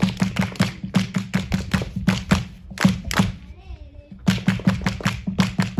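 People clapping a fast, steady rhythm, about four to five claps a second, each with a low thud on the beat. The clapping breaks off for about a second past the middle, where a voice briefly wavers, then starts again.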